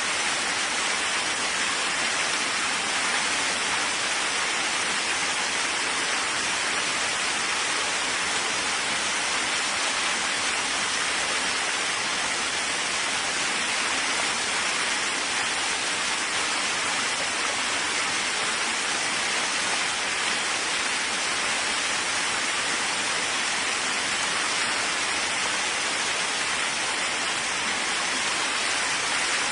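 Steady rain falling, an even continuous hiss with no thunder.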